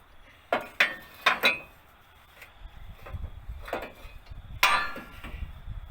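Metal clanking and knocking as a removed car exhaust pipe is handled and set down: four sharp clanks in quick succession in the first second and a half, a low scraping rumble, then one louder clank near the end.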